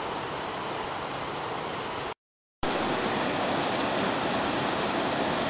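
Mountain stream cascading over boulders, a steady rush of water. It cuts off for half a second about two seconds in and returns louder.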